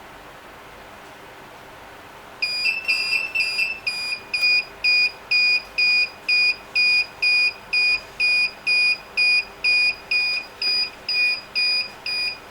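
GSM home alarm system going off on its temperature detector: a loud, high-pitched piezo beeping, about two beeps a second, starting about two seconds in after a faint steady hum.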